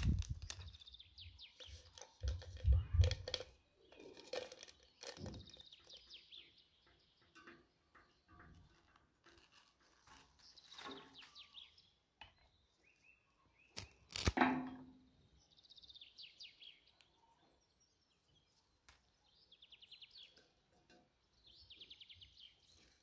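Birds chirping in quick high trills, over scattered knocks and rustles of objects being handled, the loudest a sharp clatter about two-thirds of the way through.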